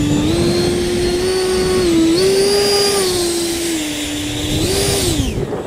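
Electric ducted fan of an FMS Futura RC jet whining as the jet taxis on grass. Its pitch steps up and down with the throttle. Near the end the whine rises briefly, then falls away sharply as the fan spools down.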